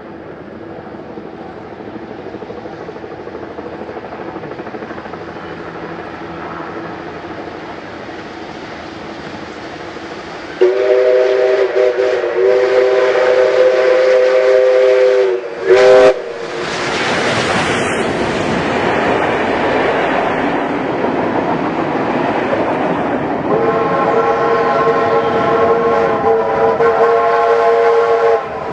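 Steam locomotives working hard on parallel tracks, their exhaust growing louder as they approach. A long, chord-like steam whistle blast lasts about five seconds, followed by a short toot, then the loud rush of exhaust and rail noise as the nearer engine passes close. A second long whistle, higher in pitch, sounds near the end.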